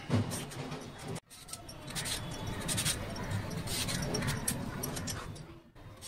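A hand-held serrated vegetable peeler scraping strips of skin off a cucumber in repeated rough strokes over a wooden chopping board. The sound cuts off abruptly a little over a second in and drops away again near the end.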